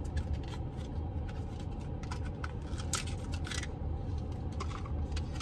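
Light clicks and rustles of a makeup blush palette and its packaging being opened and handled, over a steady low rumble of a car interior.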